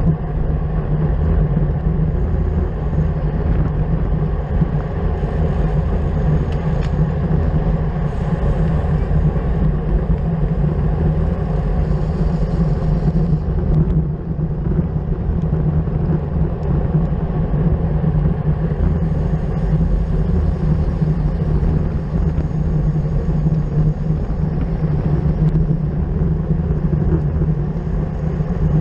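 Steady wind rush and road rumble on the microphone of a camera carried on a racing bicycle at speed.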